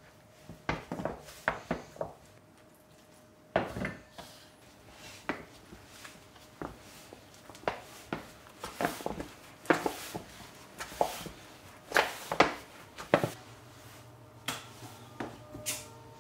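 Hands kneading a large batch of sticky bread dough in a metal bowl: irregular slaps and squishes, one or two a second, as the dough is pressed, pulled and folded over. A faint low hum comes in near the end.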